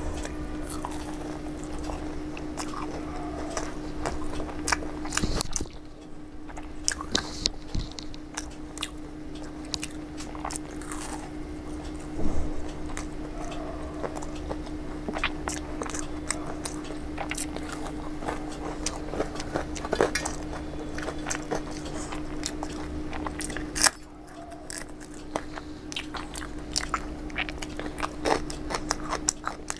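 Close-up mouth sounds of eating crisp Indian street snacks, a pani puri shell and then a fried samosa: repeated crunching bites and chewing. A steady low hum runs underneath.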